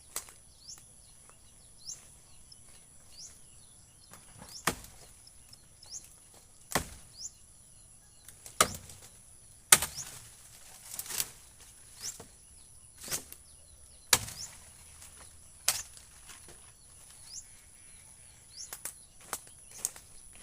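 A blade chopping into wood and branches: about twenty sharp, uneven strikes, roughly one a second, some much louder than others. A steady high whine and short repeated high chirps run behind them.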